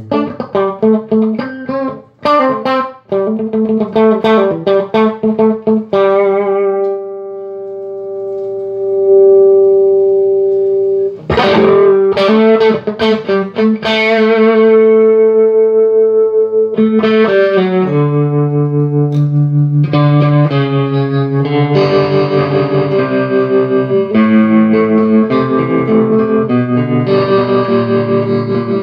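Electric guitar played through a Vox AC30 CC2 valve amp on test after repair, with its filter caps, GZ34 rectifier and top boost channel caps replaced. Single picked notes give way to one long held note about a quarter of the way in, then further picked phrases and a denser, evenly pulsing passage near the end.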